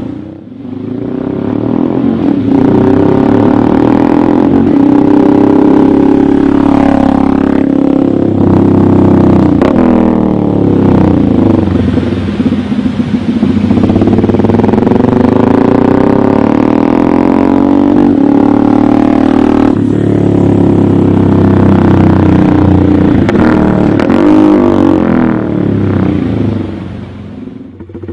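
Honda Grom's small single-cylinder engine accelerating hard through the gears, its note climbing and then dropping back at each shift, several times over; it fades briefly near the end.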